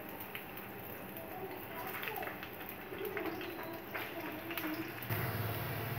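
Potato pieces sizzling faintly in a little oil on a tawa, with a few soft taps as more pieces are set down on the pan.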